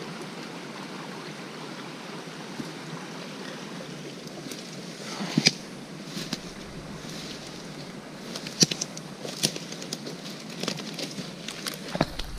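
A brook rushing steadily over rocks. From about five seconds in, footsteps through dead brush bring sharp cracks and snaps of dry twigs and branches, loudest twice in the second half.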